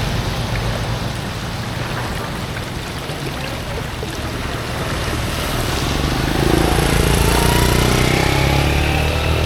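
A steady, engine-like rumble under a rushing, noisy haze, growing louder about six seconds in.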